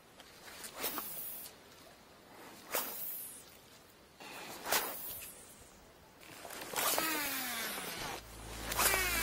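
Baitcasting rod and reel cast over and over, five times about two seconds apart: each a sharp swish of the rod, then the reel spool whirring and falling in pitch as line pays out and the spool slows. Background music comes in near the end.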